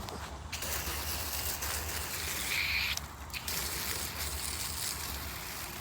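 Garden hose spraying water onto an air-conditioner condenser coil at weak, faltering pressure. The hiss of the spray drops off about three seconds in, with a steady low hum underneath.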